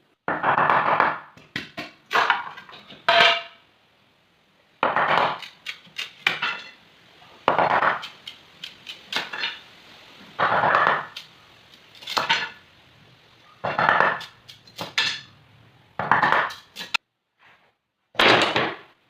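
A series of about ten short, rough scraping or clattering strokes from hand work with a tool, roughly one every one to two seconds, with brief pauses between.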